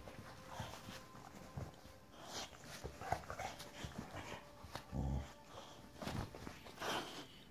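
Boxer dog making short, soft vocal sounds while pawing and climbing on a person's legs, with a low bump about five seconds in.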